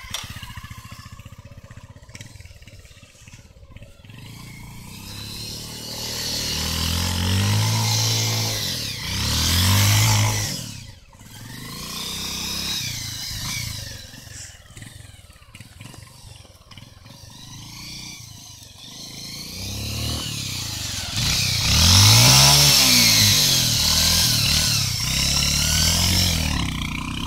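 Motorcycle engine revved up and back down in long swells as the bike is ridden in tight circles on dirt. It runs lower in between, with two strong surges: about a third of the way in, and again near the end, where it is loudest.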